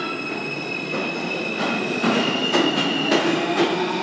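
R160 subway train pulling out of the station, running with a steady high-pitched whine over a dense rumble. The whine steps up in pitch about two seconds in as the train gathers speed, and from then on the wheels give a string of sharp clacks on the track.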